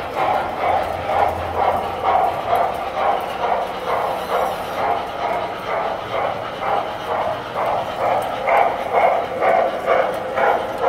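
Tinplate toy electric trains running on the layout track, making a steady rhythmic clatter of about two to three beats a second.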